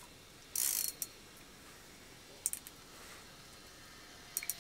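A short rustle about half a second in, then a few small sharp clicks, as fishing rods and reels are handled.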